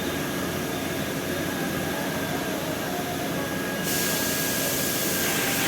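Steady hum of a running machine, with a brighter hiss coming in about four seconds in.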